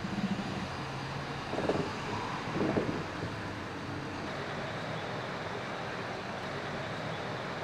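Mercedes-Benz Citaro city bus driving by, its diesel engine running steadily under road and tyre noise, with two brief louder swells a couple of seconds in.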